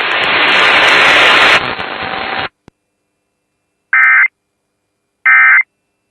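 Loud radio static hiss that cuts off after about two and a half seconds. After a short silence come two short, harsh, buzzing data bursts about 1.3 seconds apart: the Emergency Alert System end-of-message code that closes the flash flood warning.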